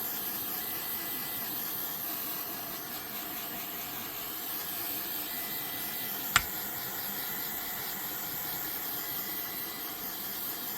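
Small lighter's flame hissing steadily while it heats heat-shrink tubing over a soldered wire splice, with one sharp click about six seconds in.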